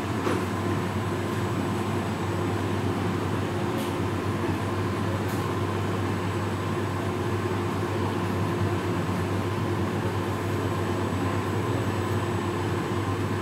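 JR Shikoku 7000 series electric train standing at the platform, its onboard equipment giving a steady hum with a couple of faint clicks.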